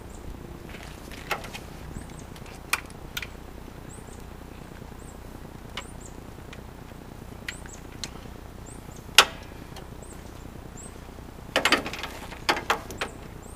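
Scattered sharp metallic clicks and knocks of a wrench and parts being handled in a car's engine bay, with the loudest single knock about nine seconds in and a quick cluster of knocks near the end.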